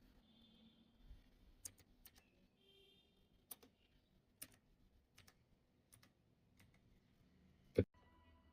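Single clicky keypresses on a T Wolf T60 mechanical keyboard with blue switches, pressed one at a time at irregular intervals rather than typed in a run. The loudest click comes near the end.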